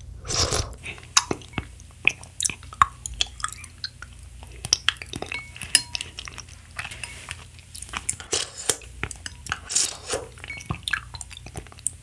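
Close-miked eating sounds of strawberry milk with popping boba: a spoonful taken into the mouth and chewed, then a long spoon stirring in a glass, with many sharp clinks and clicks.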